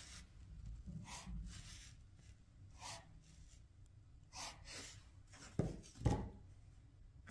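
Quiet handling sounds: a few short rustles or scrapes, then two sharp knocks about half a second apart near the end, the second the louder.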